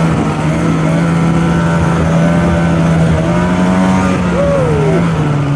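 Snowmobile engine running at a steady cruising speed, its note holding even and dipping slightly about two-thirds of the way through.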